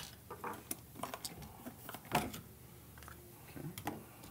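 Scattered light clicks and knocks from handling the small plastic parts and screws just removed from a Gaggia Titanium espresso machine's top panel, with one louder knock about two seconds in.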